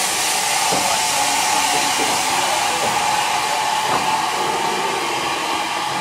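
Steam locomotive No. 1638 blowing off steam: a loud, steady hiss with a few faint knocks.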